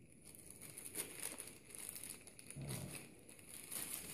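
Clear plastic wrapping crinkling and rustling as hands peel it off a long metal spearhead, in irregular crackles with a few louder bursts.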